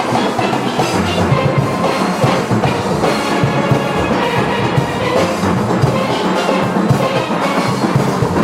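A steelband playing: many steel pans with drums and percussion in a driving rhythm.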